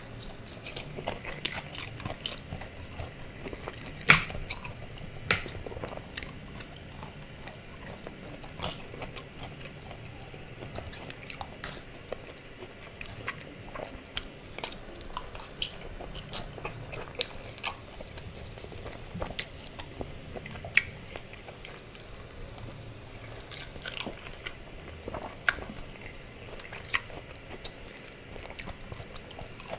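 Close-miked chewing of forkfuls of spaghetti: wet mouth sounds with many short, sharp clicks scattered throughout, the loudest about four seconds in.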